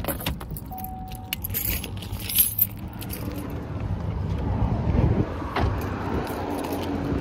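Keys jangling and clicking as they are handled in a car, with a short single beep about a second in. After about three seconds, a steady low vehicle rumble takes over.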